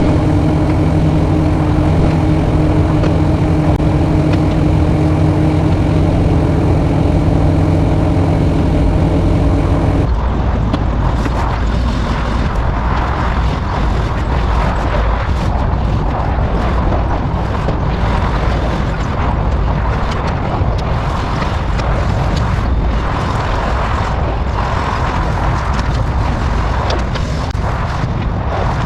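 Excavator diesel engine running steadily at an even pitch; about ten seconds in the sound changes abruptly to a rough, noisy rumble with irregular crackles.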